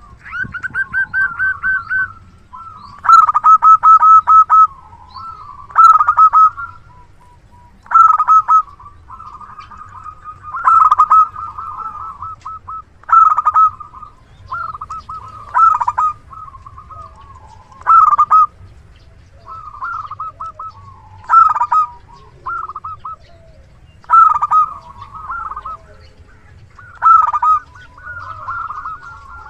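Local zebra dove (perkutut) cooing persistently, a dozen or so phrases of quick pulsed coos, each about a second long, repeated every two to three seconds.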